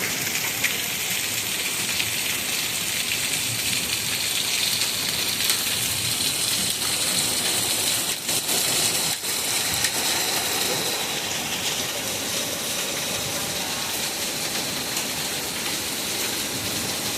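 Heavy rain pouring down steadily in a severe thunderstorm, with a couple of faint knocks about halfway through.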